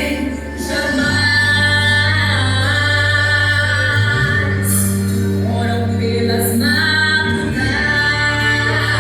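A worship group singing a gospel hymn, women's voices in front, over instrumental backing with long held bass notes.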